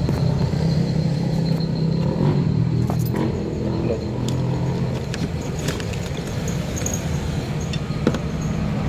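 A car engine running steadily with a low rumble, with scattered light clicks and knocks over it.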